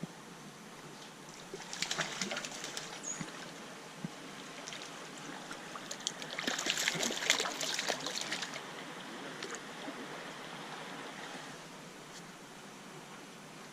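Creek water running, with two bouts of splashing: one about two seconds in, and a longer, louder one about six to eight seconds in.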